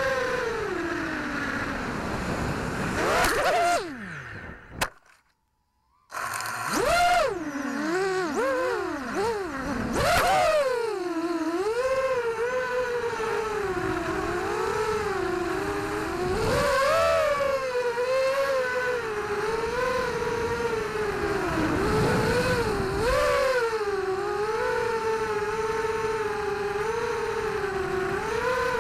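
Vortex Pro 250 FPV racing quadcopter's motors whining, the pitch rising and falling with the throttle. About four seconds in the whine drops away, there is a sharp click, and it goes silent for about two seconds before spinning up again.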